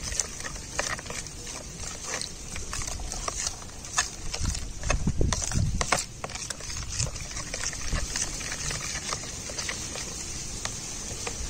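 A metal spoon stirring a watery turmeric-and-lime mixture with crushed garlic and onion pieces in a plastic tub, giving irregular clicks and scrapes. The stirring grows louder and lower for a couple of seconds around the middle.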